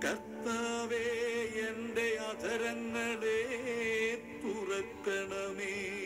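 Background music: a voice singing a drawn-out, melismatic line with wide vibrato over held instrumental tones.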